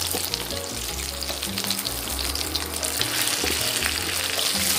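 Mussel and batter pancakes sizzling in hot oil in a frying pan, a dense steady crackle. Background music with a bass line plays underneath.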